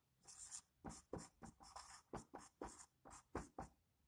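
Marker pen on a whiteboard, a faint quick run of short strokes at about three or four a second as an arrow and a word are written by hand.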